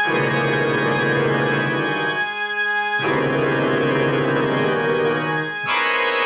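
Improvised music on an organ-like keyboard: sustained chords held for a few seconds each, changing about halfway through and again near the end.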